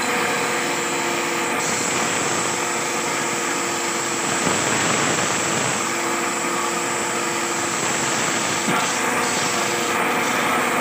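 Belt-driven wood lathe running steadily, with sandpaper held by hand against the spinning turned wooden cot leg.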